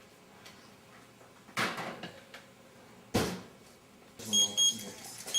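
Oven door opened and shut with a clunk, then several short electronic beeps from the oven's control panel as it is set.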